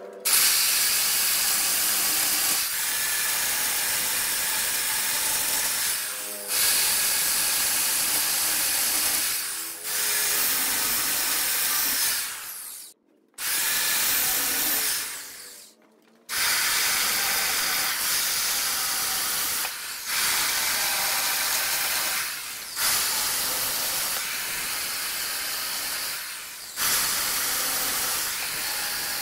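Wood lathe running, with a turning tool working the spinning wood and giving a steady hiss. The hiss comes in stretches of a few seconds, breaking off briefly between them, with two short complete silences near the middle.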